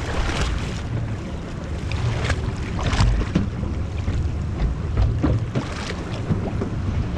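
Wind rumbling on the microphone over water slapping and splashing against the hull of a boat on open ocean swell, with irregular splashes every second or so.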